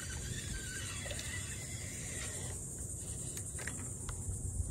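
Spinning reel being cranked, a soft mechanical whir, with a few light clicks past the middle.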